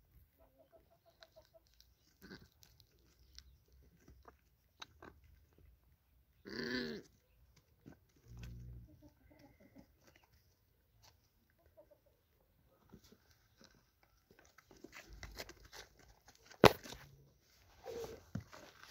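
A lamb bleats once, briefly, about a third of the way in, amid scattered small clicks and rustles. Near the end a single sharp knock is the loudest sound.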